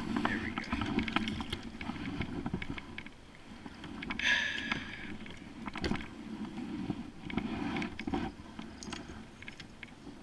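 Water sloshing against a plastic sit-on-top kayak, with small knocks and creaks from the hull and gear as the paddler shifts his weight and nearly loses his balance. A brief hissing scrape or splash comes about four seconds in, and a sharp knock about two seconds later.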